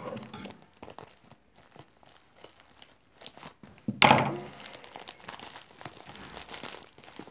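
Plastic poly mailer bag crinkling and rustling in scattered bursts as it is handled and pulled open, with one sudden louder noise about four seconds in.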